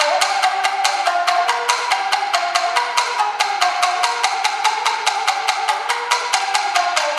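Solo Tsugaru shamisen played with a plectrum in fast, even strokes, about six a second, each note carrying the sharp slap of the plectrum on the skin head, with the melody sliding between notes.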